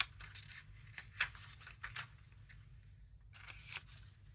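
Paper journal pages and cards being handled: soft rustling with scattered light taps and clicks.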